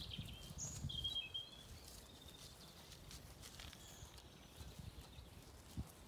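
Songbirds singing a few short, high phrases, loudest in the first second and a half and fainter after, over irregular soft low thumps from Zwartbles ewes and lambs grazing close by.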